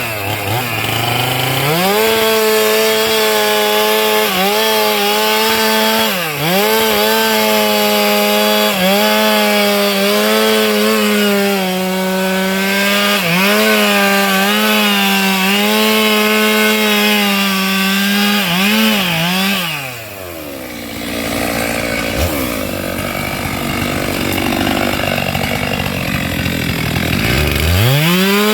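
STIHL MS 462 two-stroke chainsaw held at full throttle while cutting sengon wood, the engine briefly bogging several times as it takes load. About two-thirds of the way through it drops back to idle, then revs up again near the end.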